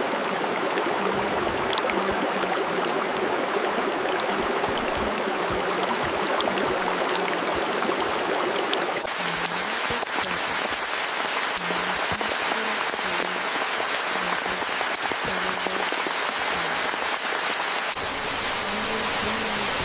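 Steady rushing water noise with soft, low musical notes sounding now and then beneath it. The water texture changes abruptly about nine seconds in and again near the end.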